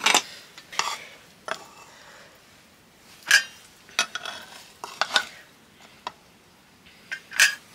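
Stainless steel utensils clinking: a spoon and ladle knocking against a steel plate and pots, in about nine separate light clinks, a second or so apart.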